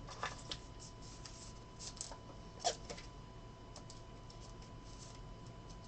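Trading cards being handled: faint scattered clicks and taps as cards are slid and set down, with a slightly louder click a little before the middle.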